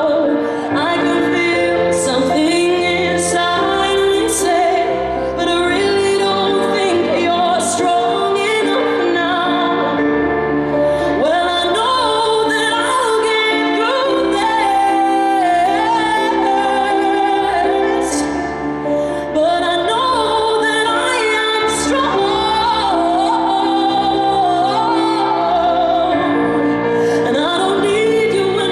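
A female singer's live vocal over grand piano accompaniment in a large arena, sung ballad-style with long held notes that bend and slide.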